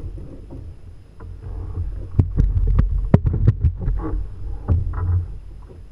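A quick run of sharp knocks and thumps on the kayak, bunched between about two and four seconds in, over a low, uneven rumble.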